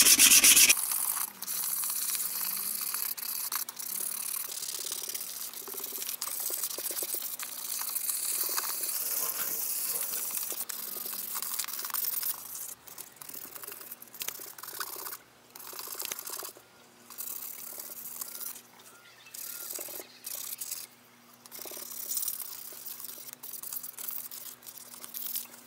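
Fine 220-grit sandpaper rubbed by hand over a car wheel's surface, a dry rasping hiss during final smoothing sanding before priming. It runs steadily for about twelve seconds, then comes in shorter strokes with pauses.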